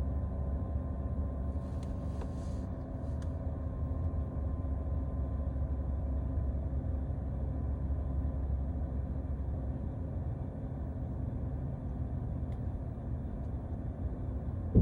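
Steady low hum in a Tesla Model Y's cabin while it charges, then a single sharp pop from the floorboard near the end. The uploader was told this pop is normal: the metal plate over the battery expanding from charging heat on a cold morning.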